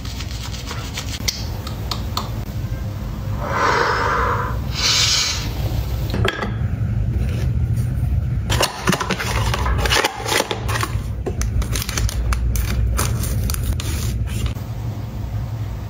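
Close-up scraping and rustling from dental-care items being handled. A toothbrush scrubs teeth first, then comes a run of clicks, taps and plastic crinkles as a cotton pad and a clear whitening-strip packet are handled.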